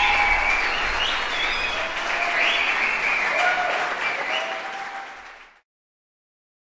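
Audience applauding, with voices calling out over the clapping, fading slightly and then cutting off to silence about five and a half seconds in.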